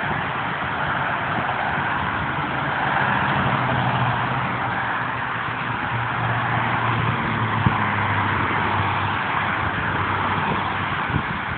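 Freeway traffic passing at speed: the steady rush of cars' tyres and engines, with a low engine hum swelling from about three to nine seconds in. A single sharp click near the middle.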